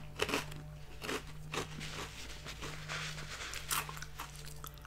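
A person chewing a mouthful of crunchy sea-salt veggie straws (Garden Veggie Straws): a string of irregular crisp crunches, a few louder than the rest.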